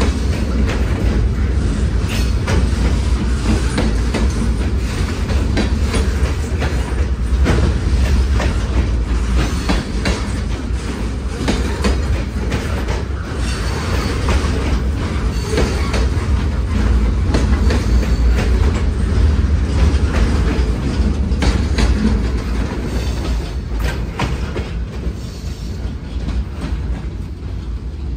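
Freight train rolling steadily past, with a deep rumble and a constant clatter of wheels over the rail joints. It eases off slightly near the end.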